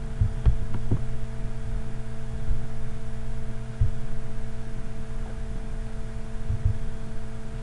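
Steady electrical hum with several low steady tones, picked up by the recording microphone. Soft mouse clicks come through a few times, including a double click near the end.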